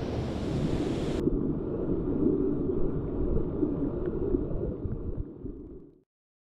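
Rushing water of a mountain stream, a steady noise that turns suddenly muffled about a second in and fades out to silence near the end.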